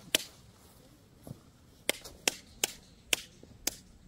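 Tent peg being hammered into the ground: a string of sharp knocks, one near the start, then after a pause five more about every half second, stopping shortly before the end.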